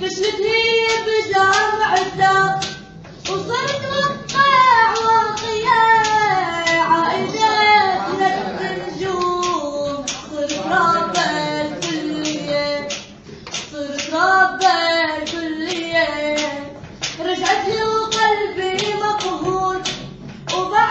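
A young voice singing a Levantine Arabic love song, with hand claps keeping a steady beat.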